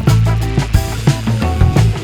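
Funk music with a steady drum beat and a sustained bass line.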